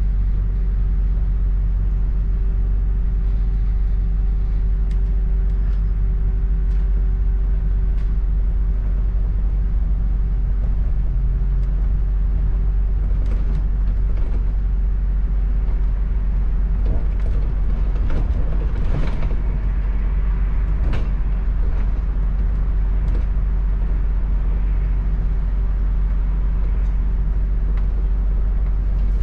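Interior of a London double-decker bus under way: a steady engine and drivetrain hum, with creaks and rattles from the body and fittings that grow busier from about halfway through.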